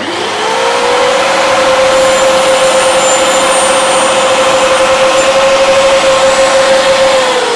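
Small benchtop table saw (DCA mini dustless, 4-inch blade) switching on and spinning up within a moment to a steady, loud, high motor whine, then switched off near the end, its pitch starting to drop as it spins down.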